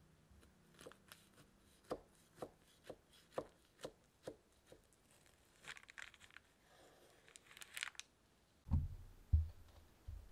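Kitchen knife cutting through a baked apple crumble slab on parchment paper: a run of crisp crunches, about two a second, as the blade breaks through the crumble topping and crust, then a longer scraping rasp as the blade draws along. A few low thuds near the end.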